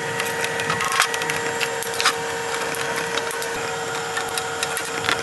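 Hand pop rivet gun being squeezed to set pop rivets in a golf cart's plastic body: a run of clicks and crackling, with sharp snaps about one and two seconds in as rivet mandrels break off. A steady hum runs behind.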